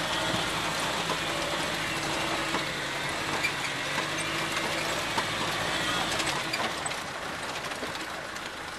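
Land Rover engine running steadily as the vehicle crawls over a rough stony track, heard from inside the cabin, with scattered rattles and crunching from the rough ground. The engine note drops away about six and a half seconds in.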